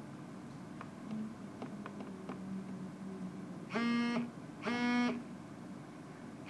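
A Micromax mobile phone's incoming-SMS alert: two buzzy electronic beeps about half a second each and a second apart, each held at one steady pitch. This signals that a text message has arrived. A few faint clicks come before the beeps.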